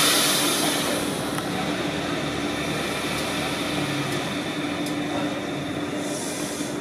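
Renfe series 442 electric train standing at the platform: a hiss of released compressed air fades away over the first second or two, leaving the train's steady hum with one low tone.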